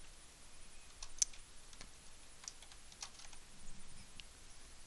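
Faint typing on a computer keyboard: scattered, irregular key clicks, with one sharper click a little over a second in.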